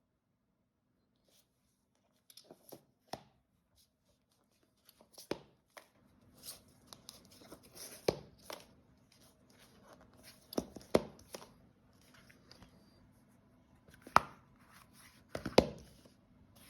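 Irregular clicks and knocks, starting about two seconds in and growing louder and more frequent in the second half, over a faint low hum.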